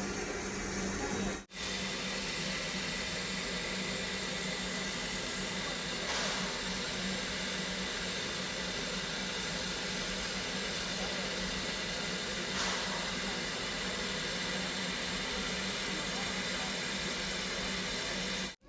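Steam train running: a steady hiss and rumble with a steady low hum, briefly cut off about a second and a half in.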